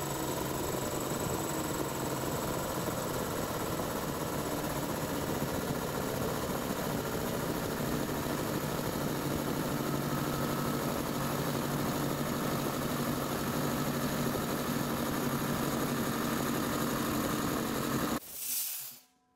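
Kobalt air compressor with a cast-iron pump running steadily while filling its tank from empty. It stops suddenly near the end, followed by a brief hiss.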